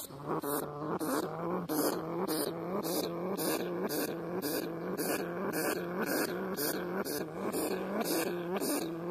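A trapped rat hissing angrily in quick, rhythmic pulses, about two or three hisses a second, each carrying a low pitched growl-like tone.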